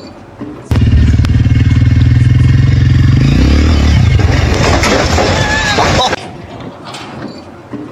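A loud engine running, with a rapid low pulsing, cutting in abruptly about a second in, dropping in pitch about halfway, and cutting off abruptly near the end.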